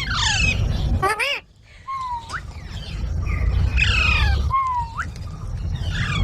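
Green parrot, an Indian ringneck, giving a run of harsh squawks and short whistled calls that rise and fall in pitch, with two upward-sweeping whistles in the middle. A low rumble runs underneath.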